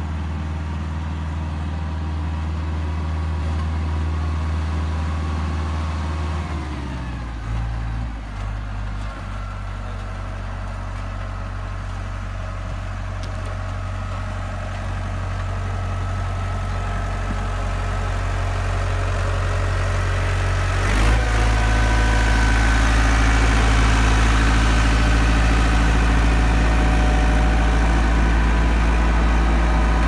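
Steel-drum road roller's diesel engine running while it compacts the subgrade, growing steadily louder as it comes close. The engine note shifts around seven to nine seconds in, and about twenty-one seconds in the sound jumps suddenly louder and heavier.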